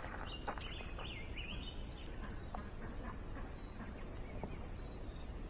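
Insects, crickets or cicadas, droning faintly and steadily at a high pitch. A few short chirps come over the first two seconds.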